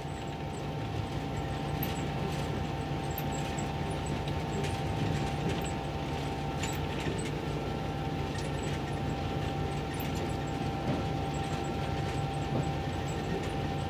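Steady rumble inside the cab of a 1934 Russell snow plow rolling along the track, with small clicks and rattles scattered through it.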